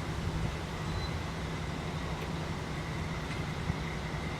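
Steady low mechanical hum of workshop background noise, with a few faint light clicks.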